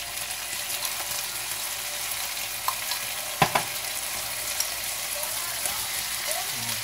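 Browned pork pieces and minced garlic sizzling in hot oil in a frying pan, a steady hiss, with two sharp taps a little past halfway.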